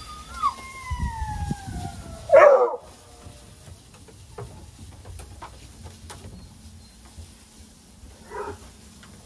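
Hounds whining in long, slowly falling tones, then one loud short bark about two and a half seconds in and a softer, shorter one near the end, with a few low thumps early on.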